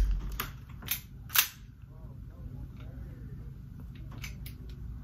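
Elite Force Glock 18c gas blowback airsoft pistol being handled and checked that it won't jam: a few small sharp clicks and one loud sharp snap about a second and a half in.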